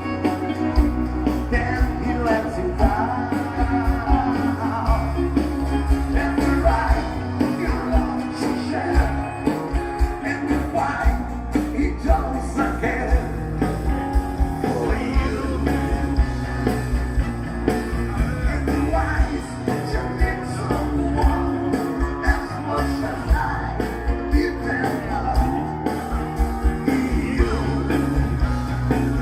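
Rock band playing a song live, with a lead vocal over guitar and a steady drum beat.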